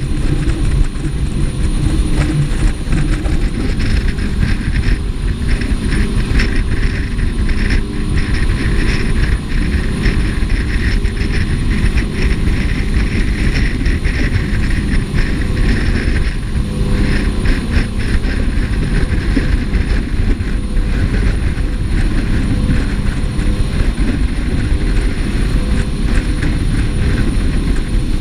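Jet boat running on the river: a loud, steady rush of engine and water noise with no break.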